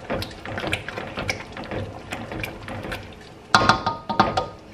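A spoon stirring and scraping in a stainless steel pot of stew, with quick light clinks and scrapes. About three and a half seconds in come a few louder metallic clanks of the spoon against the pot, each ringing briefly.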